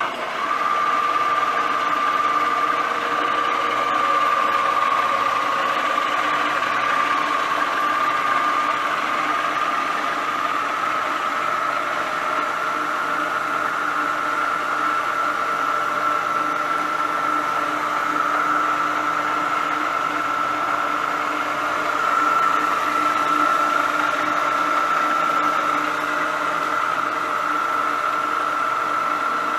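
Wilton VSG Twenty variable-speed drill press switched on and running: a steady motor whine that climbs slightly in pitch over the first half and then holds, with a lower hum beneath it.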